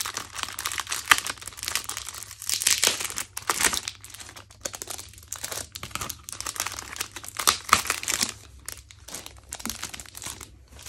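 Clear plastic wrapping and cardboard crinkling and rustling as a packet of album inclusions is unwrapped by hand. The crinkles come in irregular bursts, loudest about a second in, around three seconds and around eight seconds.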